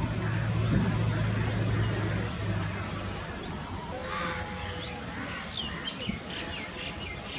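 A low steady engine-like hum that fades after about two and a half seconds, then birds chirping in short calls near the end.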